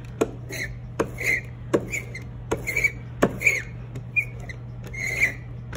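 Ink roller (brayer) rolled back and forth through water-soluble printmaking ink on a plexiglass slab, charging the roller with an even coat of ink. Short repeated strokes, about two to three a second, each with a sharp click.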